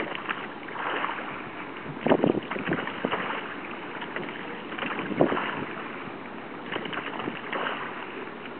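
Oars of a wooden rowing gig working in their oarlocks and pulling through the water, with a louder knock on the stroke about every three seconds. Wind on the microphone runs underneath.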